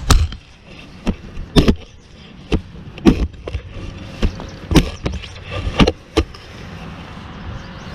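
A Nomad RootSlayer digging shovel chopping into the ground in a string of sharp strikes, about a dozen over the first six seconds, cutting a plug to dig out a strong metal detector signal.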